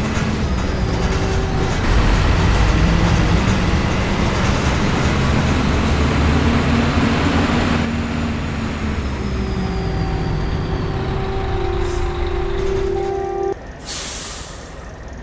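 Bus diesel engine running under way, its note easing off about halfway through, with a steady whining tone for a few seconds after. Near the end, a short hiss of compressed air from the air brakes.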